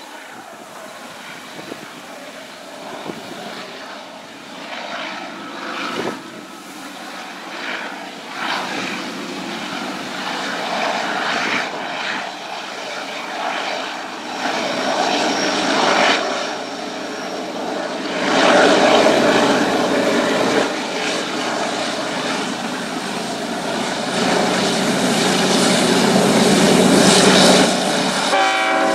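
Two GE ES44AC diesel-electric locomotives running under power as a freight train approaches, their engine drone growing steadily louder.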